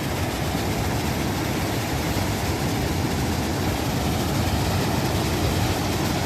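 Steady rushing noise of surf and wind, with no distinct events.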